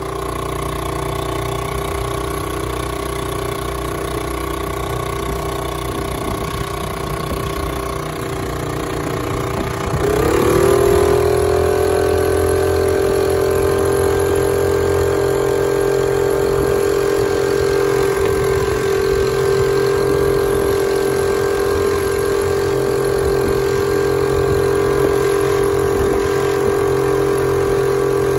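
Honda 2 hp air-cooled single-cylinder four-stroke outboard running under load. About ten seconds in it is throttled up: the engine note rises quickly, then holds steady at the higher speed.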